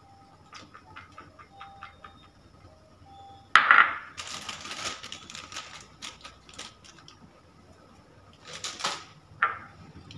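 Light clicks of a spoon stirring flour-coated dry fruits in a small bowl, then, about three and a half seconds in, a sudden loud crinkle of a plastic packet being handled, with a few more short rustles near the end.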